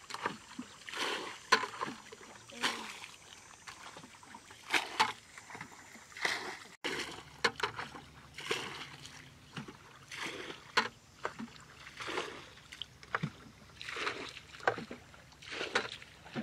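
Muddy ditch water being bailed out with a plastic bucket: repeated splashes and sloshes, roughly one a second, as each scoop is dipped and thrown out.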